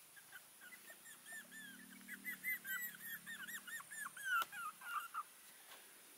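Puppies whimpering: a quick run of short, high, rise-and-fall whines, about four or five a second, stopping a little after five seconds. A single sharp click comes a little past four seconds in.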